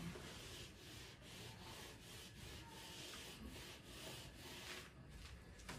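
Handheld whiteboard eraser wiping a whiteboard: a soft, faint rubbing hiss in quick back-and-forth strokes, about two to three a second.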